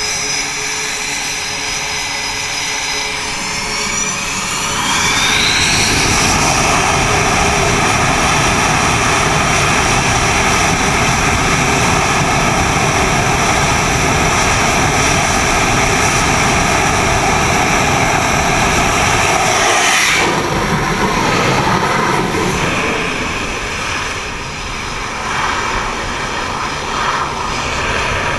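F/A-18's twin jet engines on a steam catapult, spooling up with a rising whine to full power and then running loud and steady for about fifteen seconds. About two-thirds of the way through, the catapult fires with a sharp crack, the jet is launched, and the engine noise drops away as it leaves.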